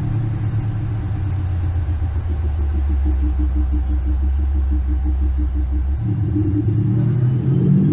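Simulated engine idle from a MAXHAUST active exhaust sound generator, played through speakers fitted to the car: a deep, steady idle rumble that changes character about six seconds in, then begins to rise as in a rev near the end.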